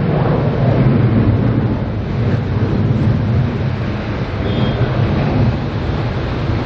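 Airbus A330-323 climbing out after takeoff, its twin Pratt & Whitney PW4000 turbofans at takeoff power: a loud, steady, deep jet rumble.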